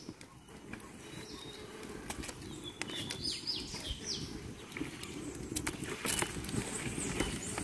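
Outdoor ambience: a few short, high bird chirps about three to four seconds in, over a low, steady rumble, with a couple of faint clicks later.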